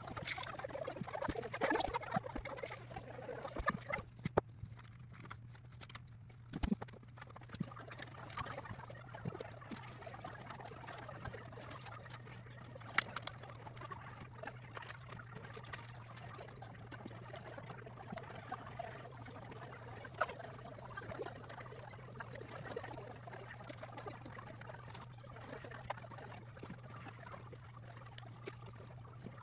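Sped-up tabletop handling noise: a fast jumble of small clicks and rustles from laser-cut wooden kit parts being fitted together, over a steady low hum, with a few sharper ticks.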